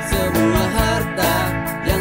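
A small rock band playing live: a steady drum-kit beat under electric guitar and keyboard, with a man singing the melody in Indonesian.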